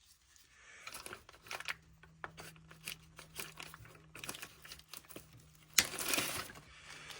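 Hands working plastic fuel pipes and their quick-release connectors: scattered small clicks and crinkly plastic rustling, with one sharp click and a brief rustle about six seconds in.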